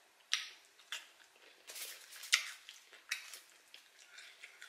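Wet eating sounds from a sauce-covered seafood boil: sticky fingers pulling apart seafood and a corn cob, with short smacks and crackles, about a dozen scattered through.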